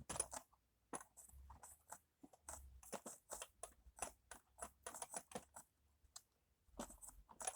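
Faint, irregular plastic clicks, taps and light rattles from hands handling the parts of a Dyson DC07 upright vacuum cleaner, with a short pause near the end.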